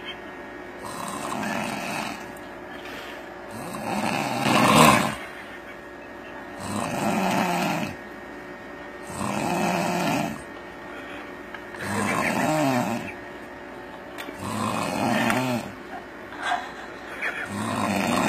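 A man snoring, about seven snores one every two to three seconds, uneven in loudness and pitch, the loudest about five seconds in.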